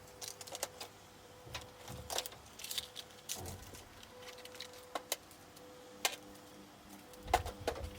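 Small household items being handled and put away: scattered light clicks, taps and rustles, with a few soft thuds, over a faint steady hum.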